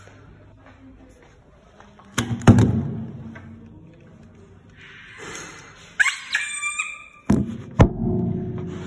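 A series of hard knocks and thuds, the loudest a double hit about two seconds in and two more near the end, with a quick cluster of clicks that ring briefly in between.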